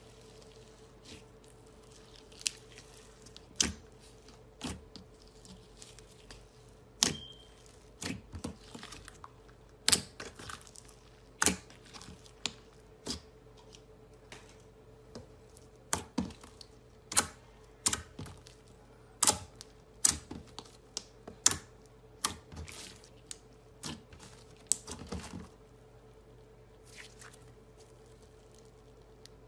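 Clear slime with glitter and sequins being pressed and squeezed by hand, giving off irregular sharp clicks and pops from trapped air, some in quick clusters. A faint steady hum runs underneath.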